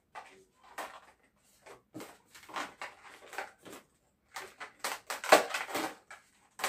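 Latex modelling balloons being handled and fitted together, rubbing and squeaking against each other in irregular bursts that grow busier and louder over the last couple of seconds.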